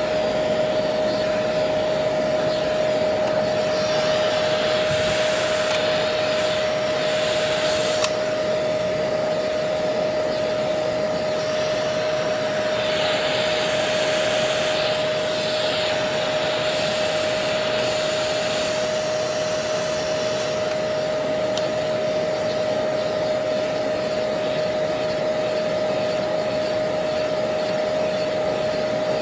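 Kidkin pet-grooming vacuum running steadily, a constant high whine over a rushing hiss; the hiss swells for a few seconds at a time as the attachment is worked over the dog's fur.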